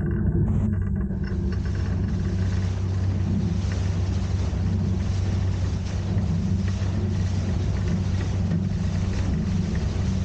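Motorboat engine running steadily under way, a low drone with a hiss of wind and water over it.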